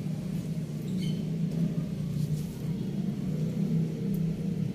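Steady low hum of a motor vehicle engine running, with a few faint light ticks over it.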